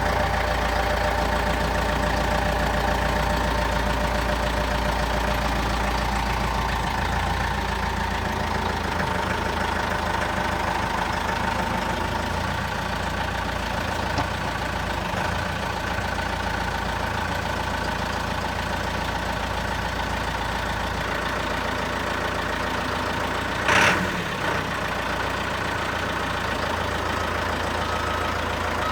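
Turbocharged diesel engine of a Caterpillar backhoe loader running steadily. A single short, sharp knock comes late on.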